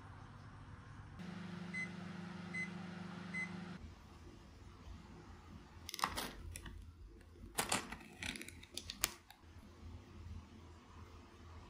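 Microwave oven running with a steady hum, sounding three short evenly spaced beeps before the hum stops after a few seconds. Then come a few sharp clicks and knocks.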